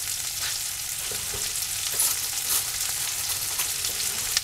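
Ribeye steaks and trumpet mushrooms sizzling steadily in a hot cast-iron skillet, crackling with scattered small pops and one sharper pop near the end.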